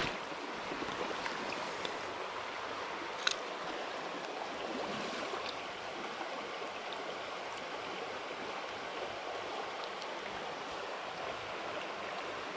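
A small stream running steadily over a shallow, rocky riffle, with one sharp click about three seconds in.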